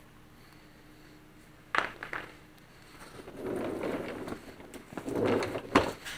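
Hands working with tools and parts in a shop: two sharp clinks about two seconds in, a stretch of scraping and rustling, then another sharp knock near the end.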